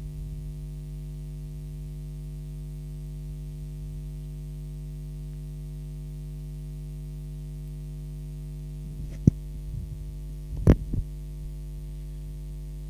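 Steady electrical mains hum, a low buzz with many overtones. About nine seconds in, a few sharp knocks and rustles as a handheld microphone is picked up and handled, the loudest a little before the end.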